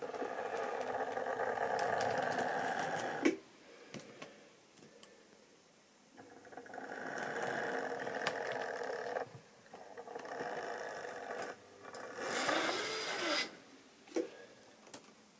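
Model railway locomotive's small electric motor whirring as it runs along the track, starting and stopping four times with short pauses between. A sharp click ends the first run, and the last run is brighter, with a dip and rise in pitch.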